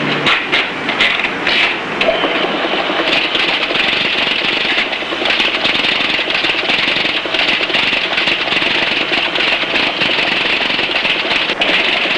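Typewriter being typed on fast: a continuous dense clatter of keystrokes and typebars striking the paper.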